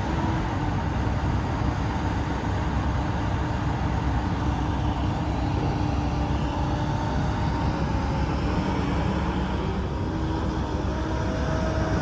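Komatsu PC290LC-11 excavator's diesel engine running steadily with an even, unbroken drone.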